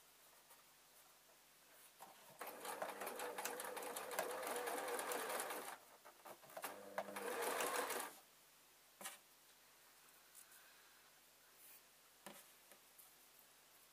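Electric domestic sewing machine stitching through layered fabric in two runs: one of about three seconds, then after a short pause a second of about a second and a half. A few faint clicks follow later.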